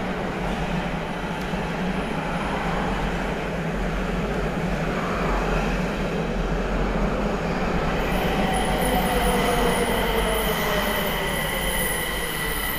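Meijo Line subway train, a Nagoya 2000 series, running into an underground station with a steady rumble of wheels on rail. From about eight seconds in, a high steady squeal and a falling whine join it as the train slows.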